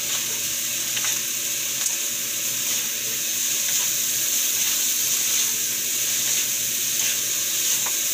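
Sliced pork lung and heart frying in a hot nonstick wok with a steady sizzle. A wooden spatula stirring the pieces gives a few faint scrapes and taps against the pan.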